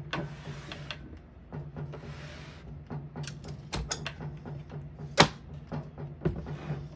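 1957 Remington Letter-Riter portable typewriter being worked by hand: short sliding, rasping sounds and scattered sharp mechanical clicks and clacks, the loudest clack about five seconds in.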